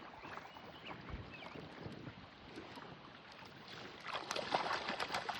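Steady wind and water noise around a small fishing boat, with a louder flurry of short knocks and rattles in the last second and a half.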